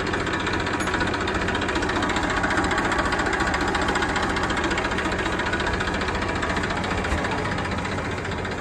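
Massey Ferguson 7250 DI tractor's diesel engine idling steadily with a rapid knocking clatter.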